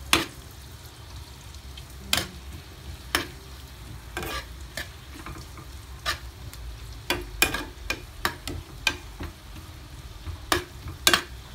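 Sliced onion, garlic and chili frying in melted butter with a gentle sizzle, while a metal ladle stirs them, clinking and scraping against the pan at irregular moments, about once a second or less.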